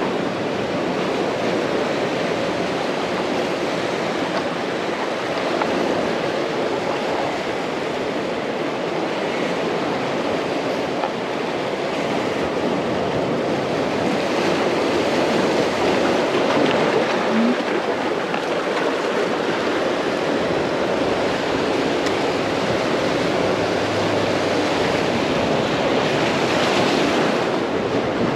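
Sea surf on a beach: a steady rush of breaking and washing waves that swells louder a couple of times.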